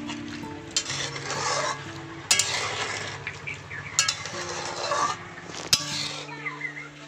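A flat metal spatula stirring cauliflower curry in an aluminium kadai, scraping wetly through the gravy, with several sharp clanks of the spatula against the pan.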